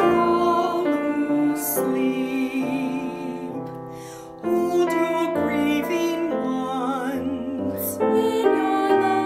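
Slow, gentle hymn sung with vibrato over piano accompaniment, one phrase fading just before the middle and the next beginning right after.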